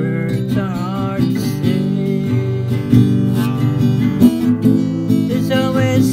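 Instrumental song intro: acoustic guitar strumming steadily, with a melody line that bends and glides in pitch above the chords.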